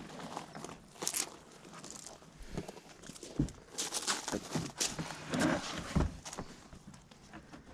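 Carpet being handled and pressed into place: irregular rustling and scraping with scattered clicks and a few short, dull thumps.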